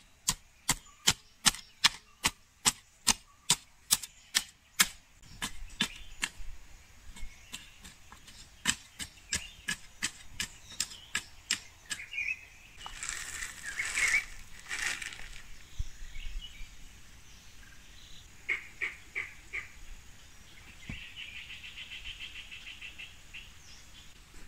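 Garden hoe chopping into loose soil: a quick run of sharp strikes, about three a second, for the first five seconds, then slower, uneven strikes, with a couple of seconds of scraping through the dirt around the middle.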